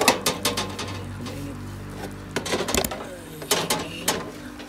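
Stainless steel roasting pan clanking and scraping against the oven rack as it is handled, in several bursts of sharp metallic clatter, over a low steady hum.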